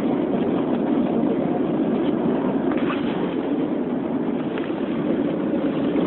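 Steady rumble of road and engine noise from a moving car, heard from inside the cabin, unchanging throughout.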